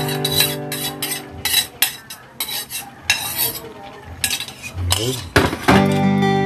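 A spoon scraping and clinking against a bowl as its contents are emptied into a cooking pan, in a run of short, irregular scrapes and knocks.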